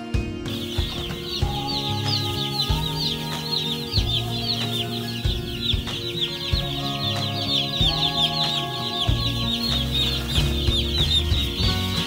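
A large brood of broiler chicks peeping, many high, falling chirps overlapping into a constant chorus that starts abruptly about half a second in, over background music.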